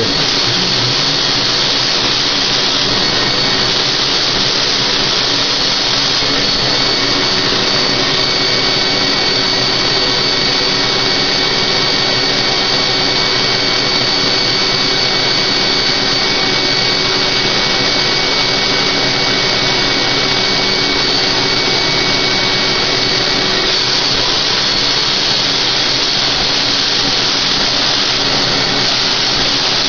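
Spray gun spraying bathtub refinishing top coat, a steady loud rush of air with a high whine over it. Part of the whine drops away about 24 seconds in.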